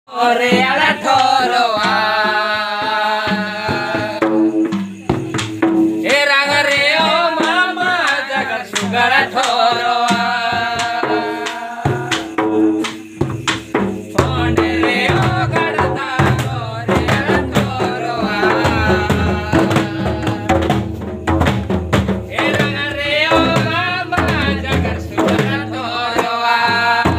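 Mundari Karam dance song: a voice singing with vibrato over a steady beat of hand-drum strokes. The singing comes in phrases, dropping out for a few seconds between them while the drum keeps going.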